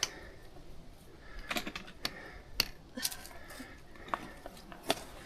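Hikers' footsteps on a rocky track: a series of sharp, irregular clicks and taps, about seven of them.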